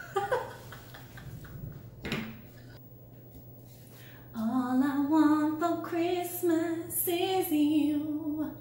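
A woman singing a slow line of long held notes into the cigar as if it were a microphone, starting about four seconds in.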